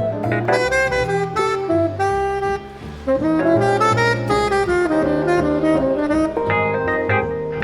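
Tenor saxophone playing a jazz melody line over a walking low accompaniment, pausing briefly near the middle before the phrase goes on.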